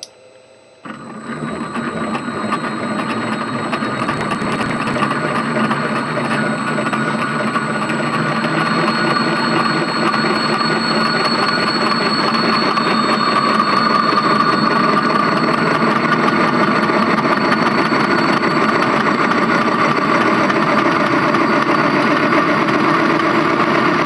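Large LG washing-machine direct-drive motor, rigged as a generator and driven through a variable-frequency drive, starting up about a second in and spinning up. Its whirring hum with a high whine grows louder over several seconds and then runs steady and noisy.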